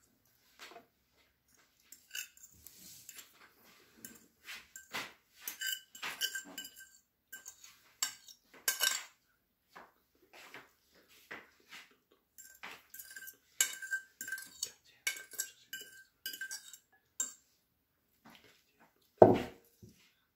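A metal spoon scraping and clinking against a glass bowl as mashed cauliflower is scraped out. The clinks come irregularly, several with a short glassy ring, and there is one louder knock near the end.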